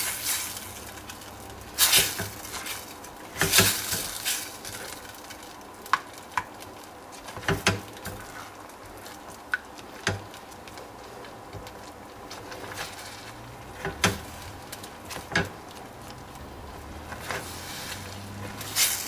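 A dark stirring utensil working a thick sauce around a metal saucepan, with irregular knocks and scrapes against the pan's sides and bottom, over the faint steady hiss of the simmering pan.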